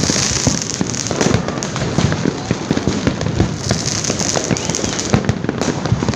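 Many fireworks and firecrackers going off at once: a dense, unbroken run of overlapping bangs and crackles.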